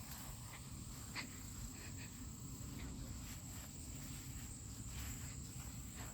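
A steady, high-pitched drone of insects singing, with a low rumble and a few faint clicks of handling underneath.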